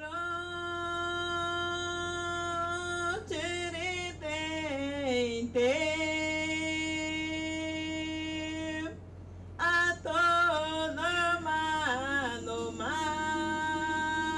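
A solo voice singing long held notes, broken twice by wavering, ornamented runs, over a steady low drone.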